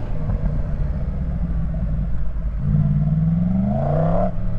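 Motorcycle engine running as it is ridden, rising in revs about two and a half seconds in and dropping back just before the end.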